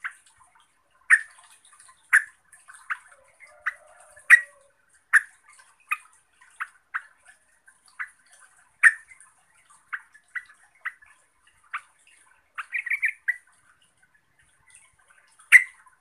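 Yellow-vented bulbul giving short, sharp chip calls at irregular intervals, roughly one a second, with a quick run of several notes about three-quarters of the way through.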